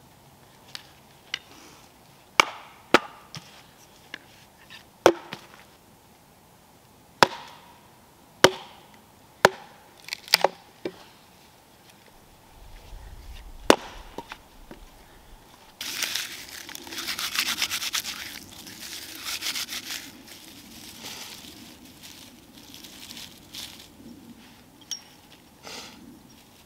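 Firewood being split: about a dozen sharp wooden knocks, irregularly spaced and some in quick pairs, over the first fourteen seconds. They are followed by about five seconds of louder, dry scraping and crackling as the wood is worked with a knife, then softer scraping.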